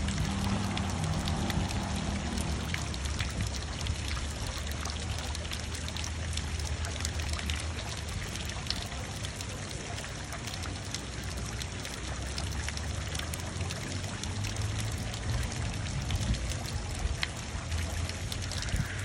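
Ornamental fountain: water falling in many thin streams from the upper basin and splashing steadily onto the figures and into the pool below.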